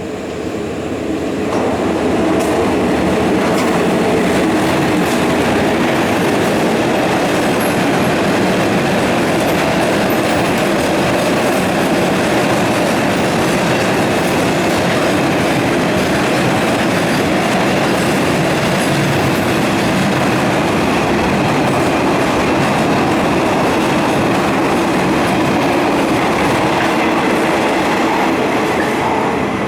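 Freight train rolling past at close range: a steady rumble of steel wheels on the rails, with rhythmic clatter over the rail joints and some wheel squeal. It swells over the first two seconds, then holds steady.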